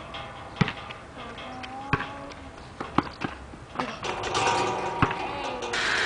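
A basketball bouncing on a hard outdoor court: single sharp thuds about a second apart. A broad hiss comes in near the end.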